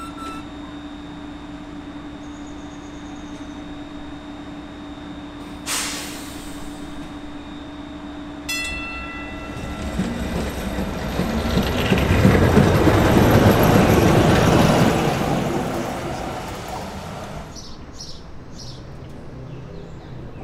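Pullman-Standard Wartime PCC trolley car pulling out and rolling past on the rails, its running noise building to a loud peak and then fading away. A steady hum comes first, then a sharp knock about six seconds in and a short pitched tone a few seconds later as the car starts to move.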